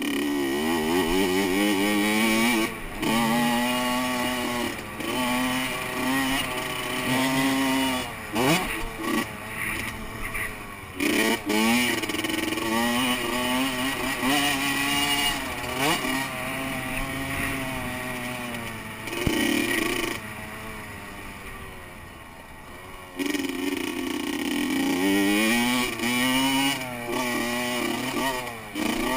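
Honda CR85 two-stroke dirt bike engine revving hard around a motocross track. Its pitch climbs again and again, broken by gear shifts and throttle chops. It eases off to a quieter, lower drone about two-thirds of the way through, then pulls hard again.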